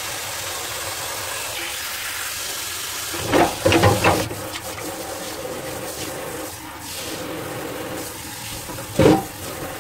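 Kitchen tap running hard into a stainless steel basin, splashing over gas stove burner heads and caps as they are rinsed. Metal parts clatter against the basin about three seconds in and once more near the end.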